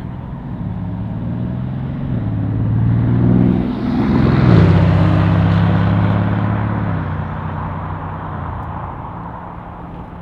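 A vehicle passing close by: its engine hum swells, drops in pitch as it goes past about four seconds in, then fades away.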